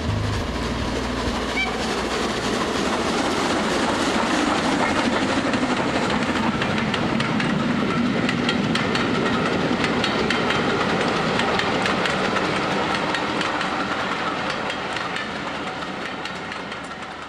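A train running along the track, with a rapid clickety-clack of wheels over rail joints, swelling over the first few seconds and fading away near the end.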